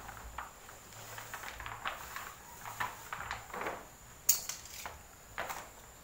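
Black plastic sheeting rustling and crinkling as hands smooth it flat and lift it, in short irregular strokes, with a sharper crackle about four seconds in.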